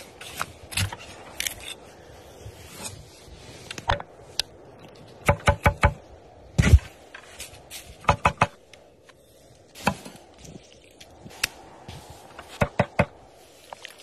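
Food being prepared with a cleaver on a wooden cutting board: sharp chopping knocks, some in quick runs of three or four strokes, with scraping and handling sounds between.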